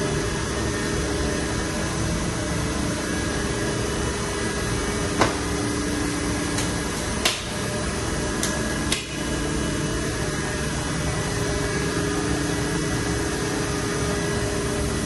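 Mori Seiki NTX 1000 CNC turn-mill lathe running with a steady mechanical hum and a few steady tones, broken by three sharp clicks a couple of seconds apart around the middle.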